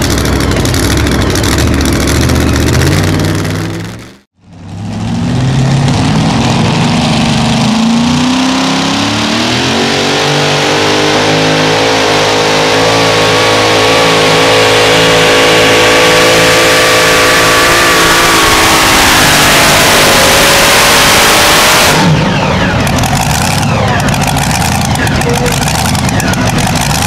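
Supercharged pulling-truck engine at full throttle under load. Its pitch climbs for a few seconds and then holds at high revs, until it cuts off suddenly near the end. Before that, another truck's engine is heard running and revving, and it breaks off briefly about four seconds in.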